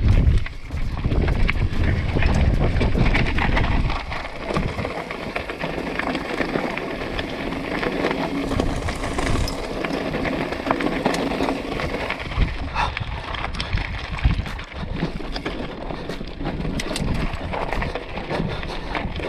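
Mountain bike riding over a loose, rocky trail: tyres crunching on stones and the bike rattling in many small knocks. Wind buffets the microphone with a low rumble, heaviest in the first four seconds.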